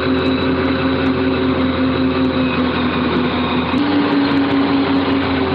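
Mobile crane truck's engine running steadily while the crane holds and lifts a suspended load, its pitch stepping up a little about two-thirds of the way through.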